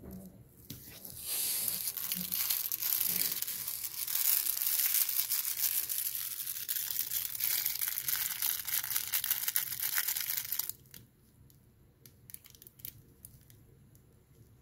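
Loud crinkling and rustling from crinkly material being handled, starting about a second in and stopping suddenly near eleven seconds, followed by a few faint rustles.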